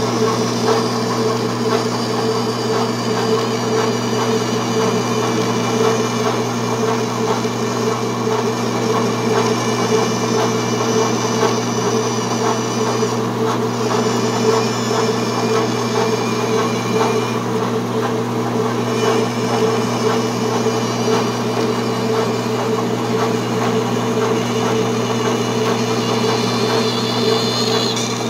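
Vertical bandsaw running steadily, its blade cutting a curve through HDPE plastic sheet: a constant motor hum with a higher whine from the cut that fades briefly twice around the middle.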